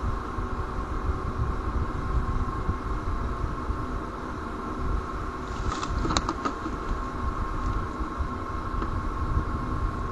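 Steady low rumble of distant vehicle noise with a constant hum, picked up by a nest-cam microphone. About six seconds in, a short burst of clicks and rustling as the bald eagle moves off the nest.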